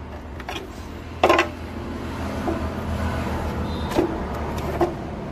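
Several sharp hard-plastic knocks and clacks as the separated car headlight lens and housing are handled and knock together, the loudest about a second in, over a steady low hum.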